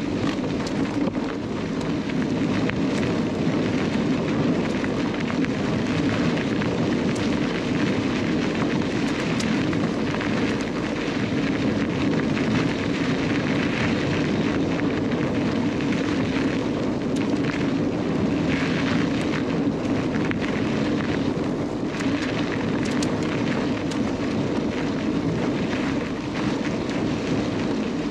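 Mountain bike ridden along a trail, heard from a camera mounted on the bike or rider: a steady rush of wind and tyre noise, with small rattles and clicks from the bike throughout.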